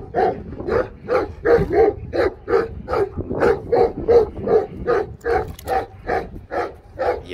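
A dog barking fast and steadily, about three barks a second.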